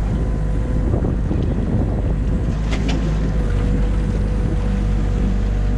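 Mini excavator's diesel engine running steadily under the cab, with a thin steady whine as the boom lowers the bucket into the dam mud. A couple of brief knocks near the middle.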